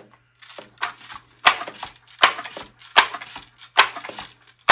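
A series of sharp mechanical clacks from an air rifle being worked between shots, about one every three-quarters of a second, with lighter rattling between them.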